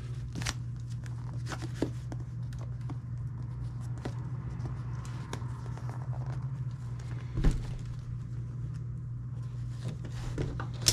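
Leather watch case being handled and its strap pulled through the buckle: faint rubbing of leather and small clicks, with a knock about seven and a half seconds in and a sharper click near the end, over a steady low hum.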